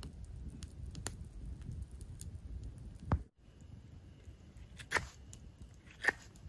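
Campfire burning with low rumbling flames and scattered crackles. After about three seconds come knife strokes whittling a piece of wood, a sharp scrape roughly once a second.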